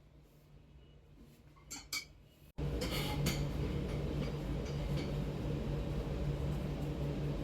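A few light clinks, then after a sudden break a steady machine hum starts about two and a half seconds in and runs on, much louder than the clinks.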